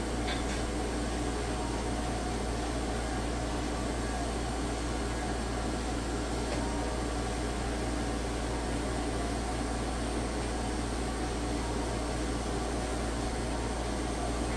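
Steady whir of a running electric grooming machine, unchanging throughout, with a low hum underneath.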